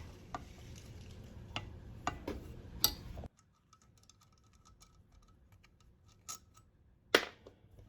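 Scattered light metallic clicks and taps of a hand tool working a screw out of a two-stroke lawnmower engine. The background drops away suddenly a little past three seconds in, and after that there are only faint ticks and a sharper click near the end.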